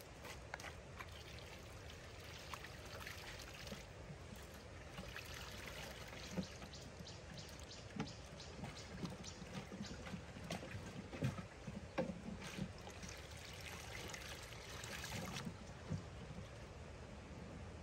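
Water trickling and splashing, with many small scattered knocks and taps.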